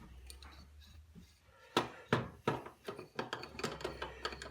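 A spanner working the nuts on a Prusa i3's threaded-rod Y-frame: a quick run of light metal clicks, about three or four a second, starting about two seconds in.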